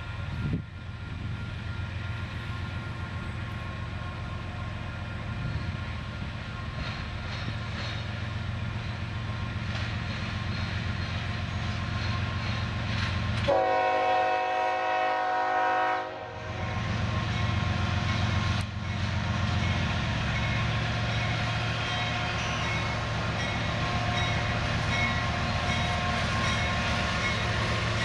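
Union Pacific GE diesel freight locomotives, an AC45CCTE leading an AC44CW, approaching with their engines running and growing gradually louder. About halfway through, the lead locomotive sounds its air horn in one long chord-like blast of about two and a half seconds.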